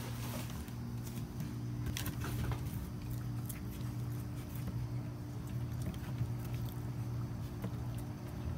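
Raccoons feeding on a wooden doorsill: scattered small clicks and pattering of chewing and paws, over a steady low hum.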